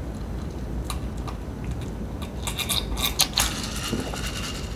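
Close-miked sips and swallows of a drink from a glass, then a quick run of wet lip and mouth smacks about three seconds in.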